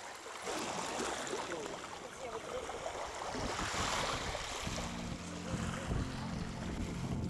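Sea water washing and splashing at the shore, with a louder surge of water about halfway through. Background music with held low notes fades in about two-thirds of the way in.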